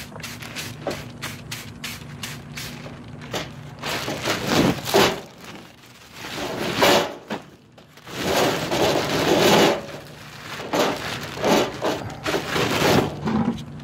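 Clear plastic bags full of golf balls being handled and gathered: a quick run of crackles at first, then repeated loud bursts of plastic crinkling and rustling.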